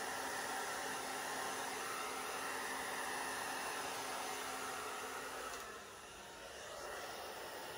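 Hand-held hair dryer with a fabric-covered nozzle, running on its high fan setting with cool air, blowing wet acrylic paint across a canvas. A steady rushing of air that drops for about a second around six seconds in, then steadies again slightly quieter.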